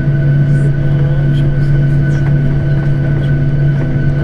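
Steady hum inside an airliner cabin: a constant low drone with a few higher steady tones above it.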